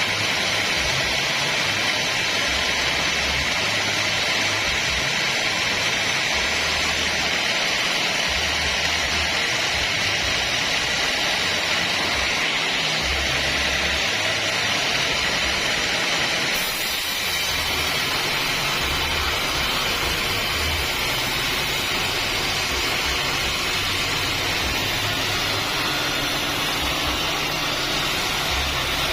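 Band sawmill running and sawing acacia wood: a steady, unbroken noise, its tone shifting slightly a little over halfway through.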